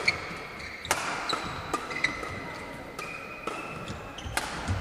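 Badminton doubles rally: sharp racket strikes on the shuttlecock about once a second, with short high squeaks of players' shoes on the court mat in between.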